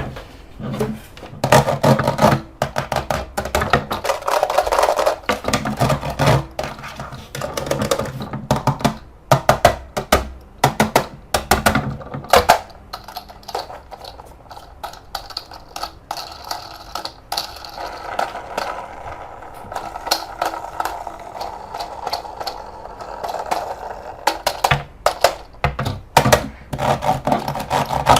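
Irregular clicks, taps and scrapes of hard plastic being handled, as when a toy RC car and its packaging are unboxed.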